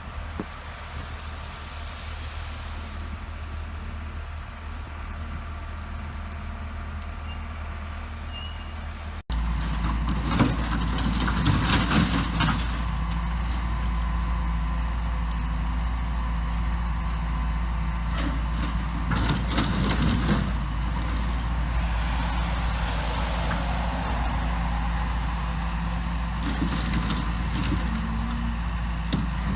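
Cat 316 excavator's diesel engine running steadily. About nine seconds in the sound jumps louder, and from then on it is broken by repeated short clanks and crunches of the steel fuel tanks being crushed.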